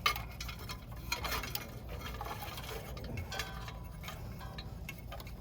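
Irregular light clicks, ticks and rattles of wires and tools being handled.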